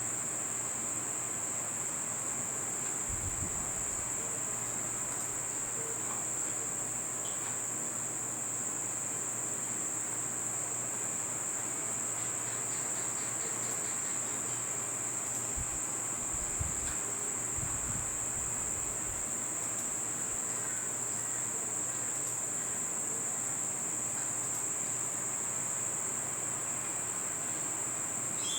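Insects trilling in one steady, unbroken high-pitched drone, with a few faint low thumps.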